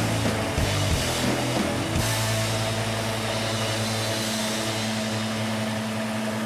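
Background music, then from about two seconds in a steady machine hum.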